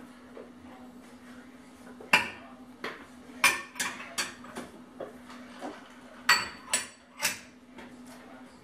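Small glass prep bowls clinking against the rim of a glass mixing bowl as sugar and spice are tapped out of them. Several sharp clinks come in two runs, starting about two seconds in and about six seconds in, over a faint steady hum.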